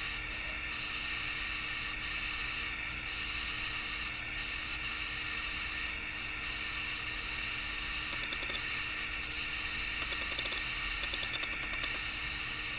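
Steady background hiss with a faint, even hum underneath; no distinct event stands out.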